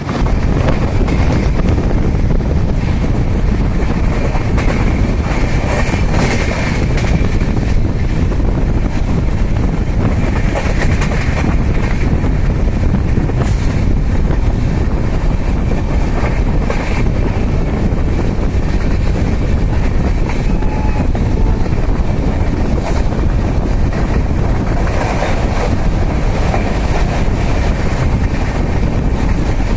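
Express train running at speed, heard from aboard the coach: a steady rumble of wheels on rails, with the clickety-clack of wheels crossing rail joints and now and then a louder clatter.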